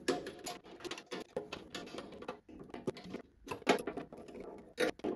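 Handling noise from hands working on a mini lathe's rear sheet-metal splash guard: irregular light clicks, taps and scrapes, with a couple of sharper knocks near the end.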